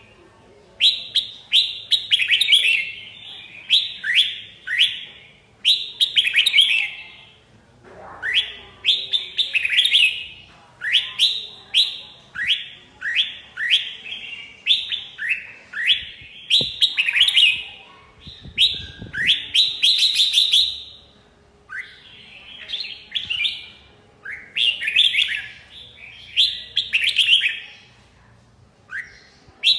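Red-whiskered bulbul singing: a steady run of short, loud phrases of quick downward-sweeping whistled notes, one phrase every second or two, with brief pauses twice.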